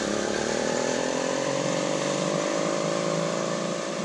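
80cc two-stroke motorized bicycle engine, fitted with a boost bottle, running steadily as the bike rides off under power.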